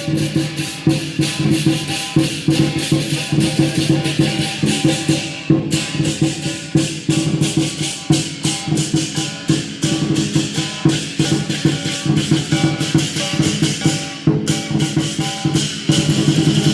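Lion dance percussion: drum and cymbals beating a fast, dense rhythm, with brief breaks about five and fourteen seconds in.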